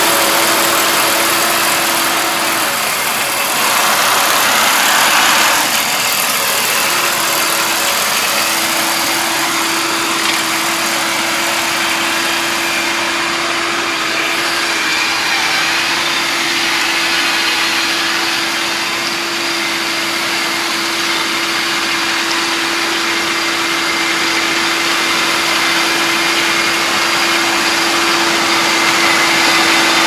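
Iseki combine harvester running in a rice field: a steady engine and machinery hum with one constant whine over a dense mechanical noise. The whine drops away for a few seconds early on, then returns and holds steady.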